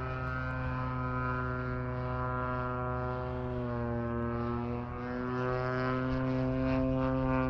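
Hangar 9 Ultra Stick radio-control airplane in flight, its motor and propeller giving a steady drone that dips a little in pitch a few seconds in and rises again later.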